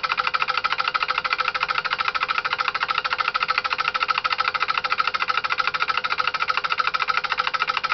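Homemade relay-switched DC motor, built from microwave-oven transformer coils and magnetron magnets, running steadily: an even, rapid clicking many times a second as the relays switch the coils, with a faint steady hum under it.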